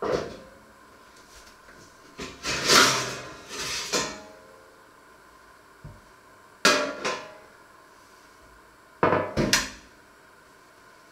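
Metal baking tray clattering and scraping as it is drawn out of an oven and set on a wooden counter. There is a sharp clank at the start, a longer scraping rattle about two seconds in, another clank a little past halfway, and a double clank near the end.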